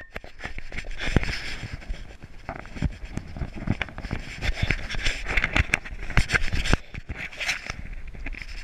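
Close handling noise on a dog-collar GoPro mount: hair brushing across the camera and hands rubbing and knocking on it as the mount is adjusted, heard as rustling with irregular clicks and thumps.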